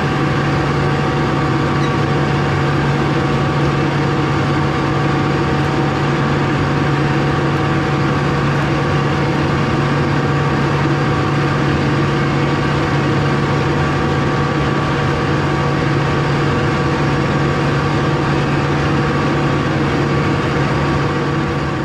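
Tractor engine running steadily at an unchanging speed, a constant low hum.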